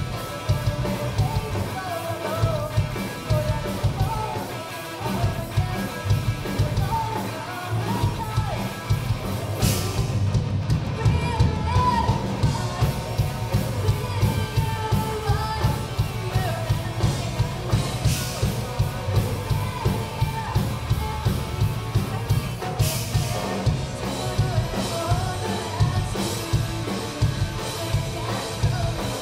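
Live rock band playing: electric guitars, bass and a drum kit keeping a steady beat, with a female lead vocal singing over it.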